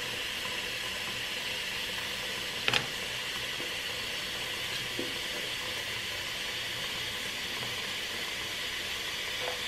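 Kitchen faucet running a steady stream of water into a partly filled stainless steel stockpot: a constant splashing hiss. A single sharp tap about three seconds in, as a knife is set down on the plastic cutting board.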